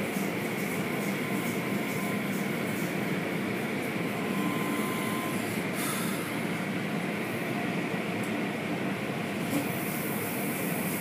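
Automatic car wash running over the car, heard from inside the cabin: rotating cloth brushes slapping the windshield and body under water spray, making a steady rumbling hiss. The hiss turns brighter about six seconds in and again near the end.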